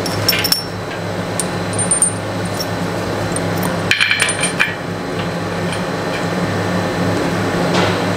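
Steel washers clinking against the metal mounting plate of a mixer wagon's auger as they are set in place to shim the screw up off the floor, in a short run of clinks about half a second in and a cluster about four seconds in. A steady low hum runs underneath throughout.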